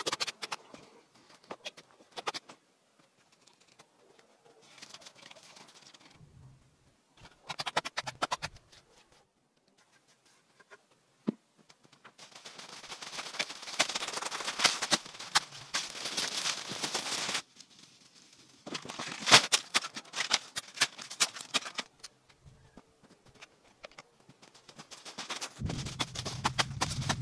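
A trowel scraping and slapping wet mud onto a stone block, then footsteps crunching and rustling through deep dry fallen leaves in long loud stretches. A few low thuds come near the end.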